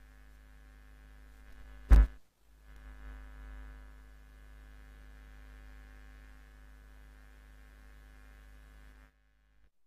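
Steady electrical mains hum, a low buzz with many overtones. About two seconds in it is broken by one loud sharp click and a brief dropout, and it cuts off about nine seconds in.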